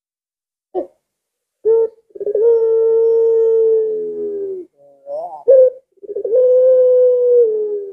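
White Barbary dove ('puter pelung') cooing. Two short clipped notes come first, then a long drawn-out coo held at one pitch. After a quick rising warble comes a second long coo that drops in pitch at its end.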